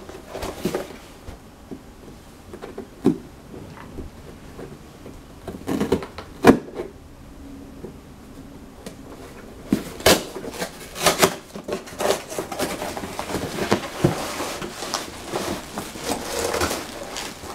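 A long cardboard shipping box being handled and opened: scattered knocks and scrapes of cardboard, with one sharp knock about six seconds in. From about ten seconds in, rustling of the bubble-wrapped antenna as it is slid out of the box.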